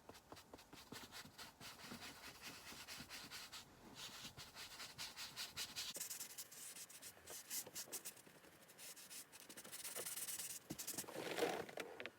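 Sponge rubbing and dabbing leather colourant into a car seat's leather bolster: a steady run of quick scuffing strokes, loudest near the end.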